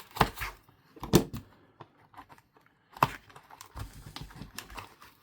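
Packaging of a WorkPro utility knife set being opened by hand: a few sharp clicks and snaps, then a run of faint crackling.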